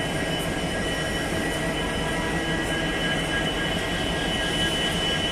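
Railway locomotive running steadily: an even hum with a constant high whine.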